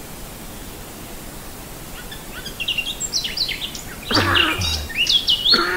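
Birds chirping: a rapid run of short, high chirps begins about two seconds in over a faint steady hiss. About four seconds in, louder bursts of noise with a low hum join them.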